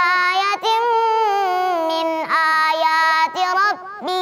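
A young girl's voice chanting Quran recitation in the melodic tajwid style, holding long, ornamented notes that step down in pitch, with a brief pause for breath near the end.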